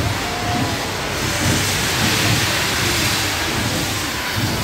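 Steam locomotive moving off with a steady hiss of steam, which grows brighter about two seconds in.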